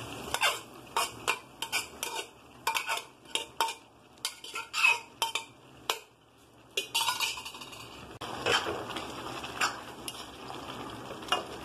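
A metal spoon scrapes and knocks against the inside of a pressure cooker, with quick separate metallic clicks, as boiled sprouts are tipped into a kadai. After a short pause, about seven seconds in, a metal spatula stirs the sprouts in the metal kadai, scraping and clinking on the pan with a faint sizzle underneath.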